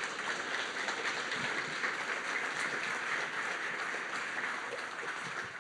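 Audience applauding steadily after a talk, the clapping tailing off near the end.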